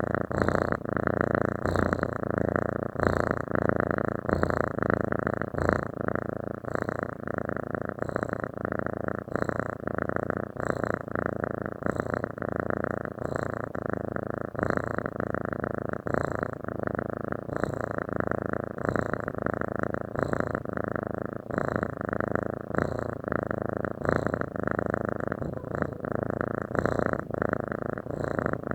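Domestic cat purring steadily and continuously, the purr swelling and easing in an even rhythm with its breathing.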